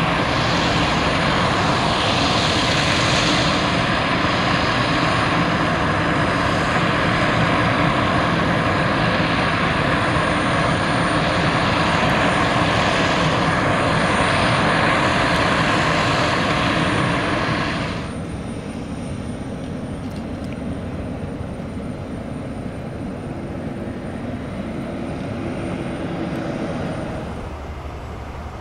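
Turboprop engines of an Airbus A400M running steadily, a loud propeller drone with several held tones. The sound drops abruptly to a quieter, still steady engine sound about two-thirds of the way in.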